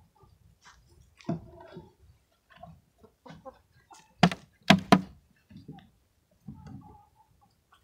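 Wooden beehive parts being handled: scattered wooden thunks and knocks, the loudest a cluster of three sharp knocks about four to five seconds in, as the hive's inner cover is worked loose and lifted off by hand.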